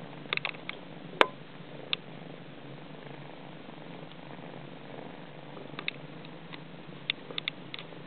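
Steady purring from a Somali mother cat and her nursing kittens. Short sharp clicks are scattered through it, the loudest about a second in, with a small cluster near the end.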